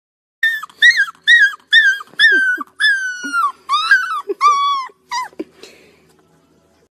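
Golden retriever puppy howling: a string of about ten short, high-pitched howls, most dropping in pitch at the end, a couple held longer, stopping about five seconds in.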